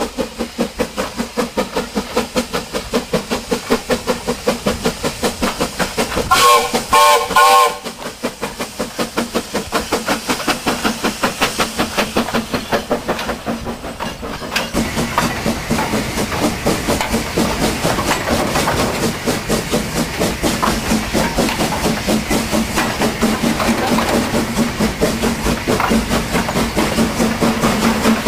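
Steam locomotive working a loaded coal train, its exhaust chuffing in a steady rhythm, with the steam whistle sounding in short blasts about six seconds in. From about halfway the loaded coal wagons rumble and clatter past over the rail joints.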